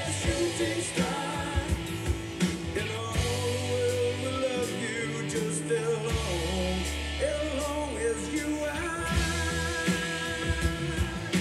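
A rock song with singing, guitar, bass and drums playing back from a cassette on a Marantz 5220 stereo cassette deck. It has a little wow and flutter, which the owner puts down to the tape's high mileage.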